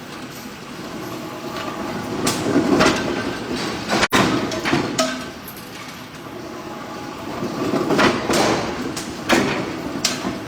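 Heavy metal clanks and hammer blows of bolt forging, coming irregularly in two clusters over a steady mechanical rumble.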